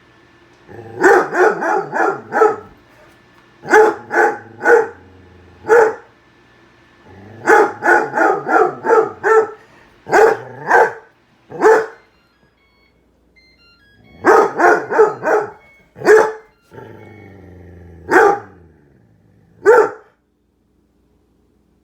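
Pet dog barking repeatedly at a running microwave, in quick runs of three to six barks broken by short pauses, with a brief lull about twelve seconds in.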